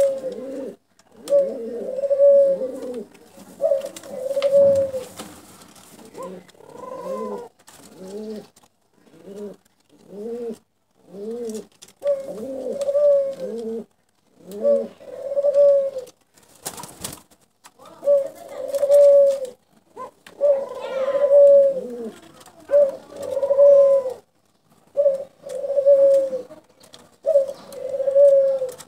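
Dove cooing over and over: short, low coo notes following one another about once a second, in phrases with short pauses. A single sharp click cuts in about two-thirds of the way through.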